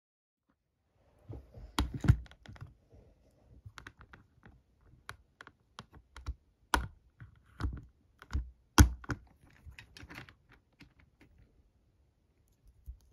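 Small, irregular plastic clicks and taps of a LEGO minifigure being handled: its legs moved at the freshly tightened hip joint and the figure set down on a studded baseplate. Two clicks, about two seconds in and near nine seconds, are the loudest.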